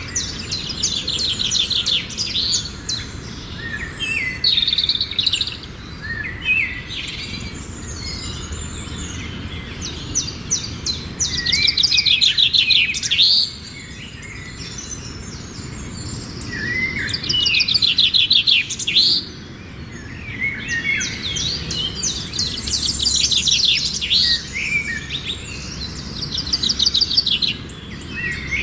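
Birds singing: rapid high trills, each lasting a second or two, recur every few seconds among scattered shorter chirps.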